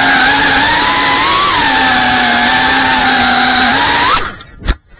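FPV racing drone's electric motors and propellers buzzing at a steady throttle, the pitch wandering and rising briefly just before four seconds in. The buzz cuts off abruptly and a single sharp knock follows: the drone crashing, its motors stopping.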